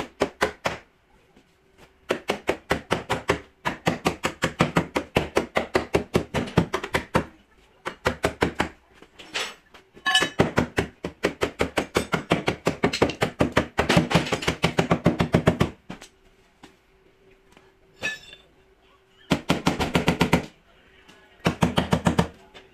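Hand body hammer tapping quickly and repeatedly on the sheet metal of a Ford Taurus's left rear quarter panel at the wheel-arch lip, straightening the collision damage. The taps come about eight a second in runs of a few seconds, broken by short pauses.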